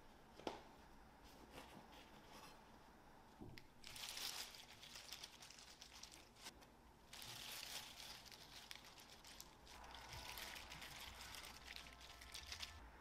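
A disposable plastic glove crinkling as a gloved hand handles food, in three stretches of faint rustling. There is a single light knock about half a second in.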